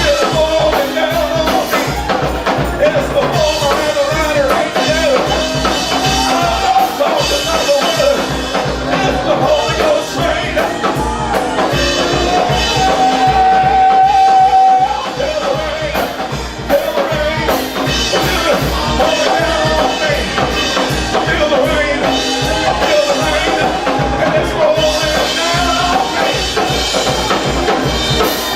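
Church praise music: a band with a drum kit keeping a steady beat under a winding lead melody, one note held long about halfway through.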